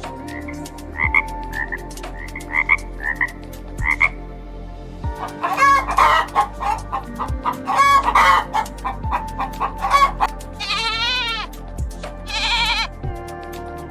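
Chickens clucking and a rooster crowing, a series of short calls, over background music with a slow, steady beat.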